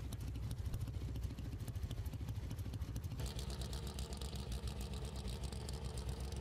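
Pro Stock drag racing motorcycle engines idling on the starting line after their burnouts, a steady low, pulsing rumble. About three seconds in the sound gets brighter.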